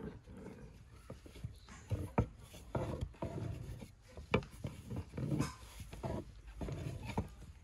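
A long thin wooden rolling pin rolling out dough on a wooden board: repeated rolling strokes with a rough rubbing sound, broken by a few sharp knocks of the pin against the board.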